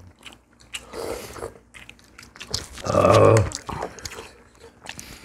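Eating at a table: chewing and the scattered clicks of chopsticks and spoons on dishes. About three seconds in, a person gives one short, loud, low voiced grunt or hum.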